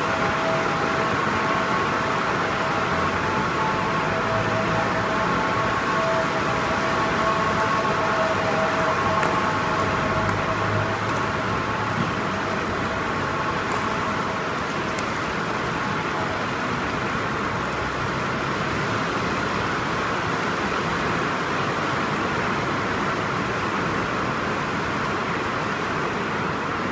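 Steady rushing background noise in a large sports hall, with a faint hum in the first half and a few faint light clicks midway.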